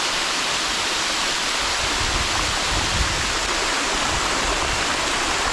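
Steady rush of a river and waterfall, water pouring and churning without a break, with a low rumble joining about two seconds in.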